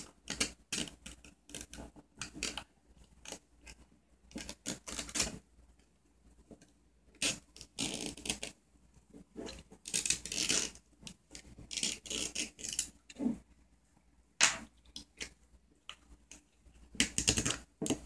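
Irregular scraping and crackling as gloved hands work a loudspeaker driver's spider and cone apart, with a few longer scraping stretches of about a second.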